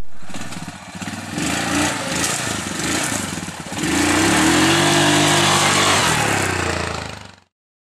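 Yamaha ATV engine pulling away, its pitch wavering and then rising about four seconds in to a steady, higher run; the sound cuts off suddenly near the end.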